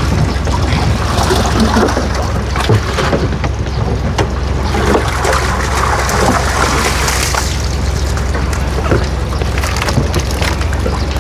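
Water sloshing and splashing as live crucian carp are poured from a transport tank into the pond, with frequent sharp knocks and a steady low hum underneath.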